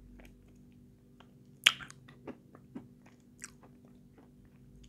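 Chalk being crunched and chewed with the mouth closed: a handful of short, sharp crunches, the loudest a little under two seconds in, between quieter chewing.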